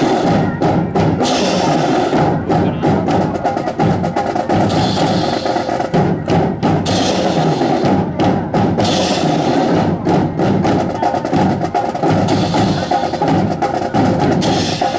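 Drum corps playing a marching percussion cadence on bass drums and drums, with many sharp wooden clacks in time, typical of drill rifles being slapped and struck during a fancy rifle drill.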